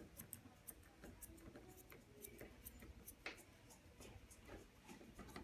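Grooming scissors snipping lightly at the hair around a dog's foot: faint, irregular snips a couple of times a second, one a little louder a bit past the middle.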